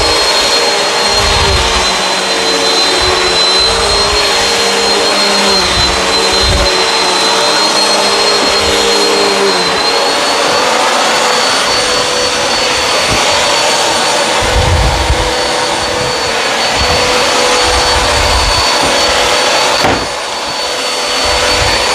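Bissell CleanView Swivel upright vacuum running on carpet, its motor giving a steady high whine that shifts up a little about halfway through. Irregular low swells come from the vacuum working over the carpet, and the level dips briefly near the end.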